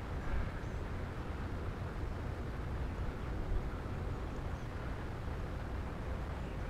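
Steady rush of wind and propeller noise from an electric radio-controlled P-51 Mustang in flight.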